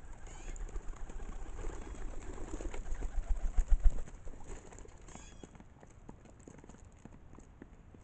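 Feral pigeons flapping and scuffling at a feeding table: wing flutters and thumps build to the loudest bursts around three to four seconds in. After that it settles into light, scattered tapping as they peck at seed on the plastic table.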